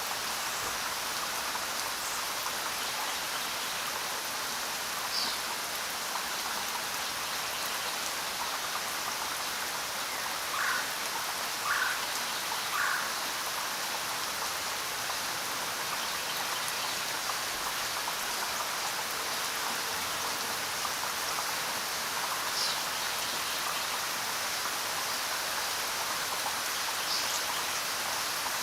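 Steady rain falling, with a few short chirps from some small creature now and then, three close together about ten seconds in.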